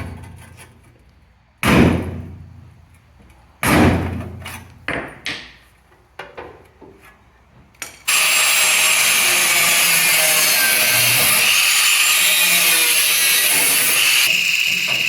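Several loud metal clanks and bangs, each ringing briefly, then about eight seconds in a power tool starts and runs steadily on sheet metal with a harsh hiss. The hiss gains a higher edge near the end.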